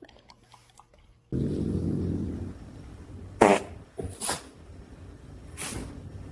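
A dog farting. A low rumbling blast starts suddenly about a second in, followed by a loud, short squeaky burst and a couple of briefer puffs.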